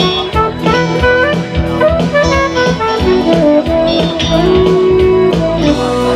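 Live band music: a saxophone plays a melody over electric guitar, with a steady beat.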